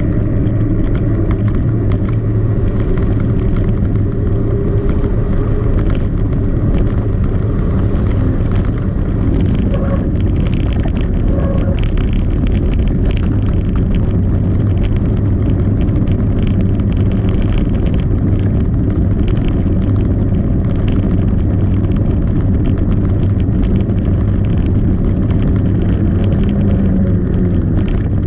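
Mountain bike rolling over a street of hexagonal concrete pavers: a steady, loud rumble from the tyres and frame, with constant fine rattling as the wheels cross the joints between the blocks.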